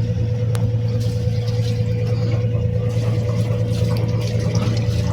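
Sailboat's inboard engine running steadily under way, a constant low hum with a steady higher tone over it.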